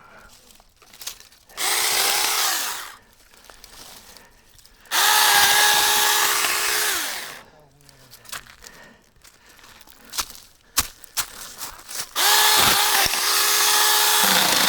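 Handheld battery-powered Saker mini chainsaw cutting branches in three bursts, its electric motor whining up to speed at each trigger pull and winding down on release. A few sharp clicks and snaps in the gaps between cuts.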